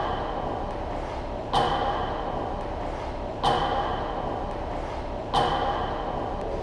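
Three sharp cracks of hockey shots, about two seconds apart, each ringing briefly as stick and puck strike, over steady background noise.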